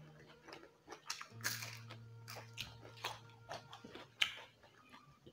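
Close-miked chewing and crisp crunching of raw vegetables and rice eaten by hand, with a string of short crackles, loudest about a second and a half in and again near four seconds.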